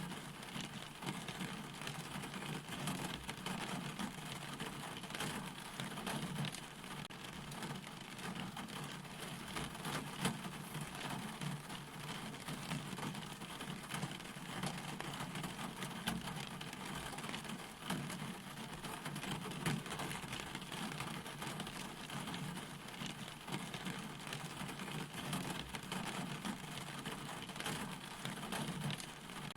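Steady rain falling, a continuous even hiss with many fine drop ticks.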